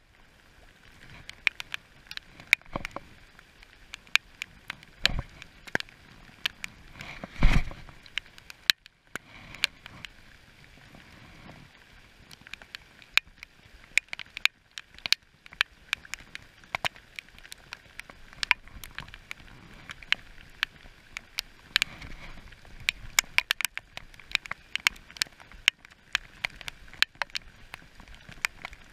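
Heavy rain: irregular sharp ticks of raindrops hitting the camera close up, over a soft steady hiss of rain on the river. Two dull knocks come about five and seven and a half seconds in, the second the loudest sound.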